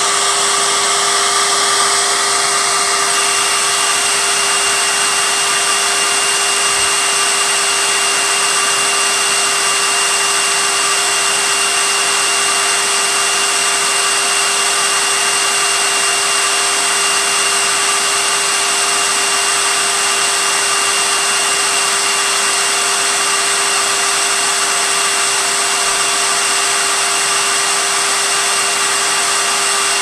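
Vacuum cleaner running steadily: a constant motor whine over a loud, even rush of air, with no change in speed.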